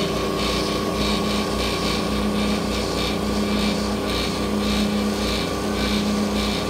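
Grizzly G0458Z open-end drum sander running with its conveyor feed belt moving: a steady motor hum with a regular pulsing about twice a second.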